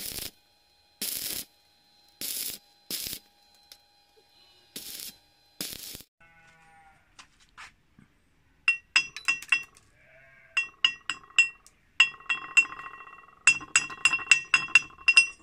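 A few short bursts of noise in the first six seconds. Then a homemade welding chipping hammer strikes a weld bead on steel held in a vise, knocking off the slag: sharp ringing metal taps that come in quick runs of several a second toward the end.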